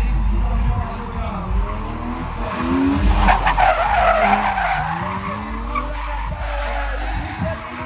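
A car's engine revving up and down, with tyres skidding as it drifts through a gymkhana course. The skid is loudest about three to five seconds in.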